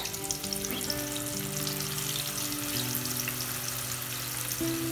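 Raw plantain slices sizzling and crackling in hot oil, a dense, steady frying sound, just after the wet slices have gone into the oil.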